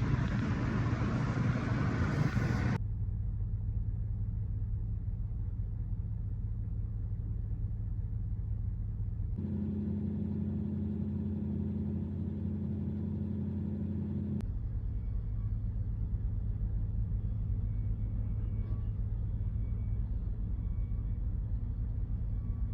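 Steady low vehicle rumble of engine and road noise, with a hiss on top for the first three seconds. Its tone changes abruptly about nine seconds in and again about fourteen seconds in.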